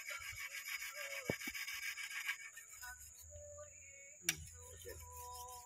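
A fine sharpening stone rubbed in quick repeated strokes along a steel sickle blade, stopping about two seconds in; a single sharp click follows about four seconds in.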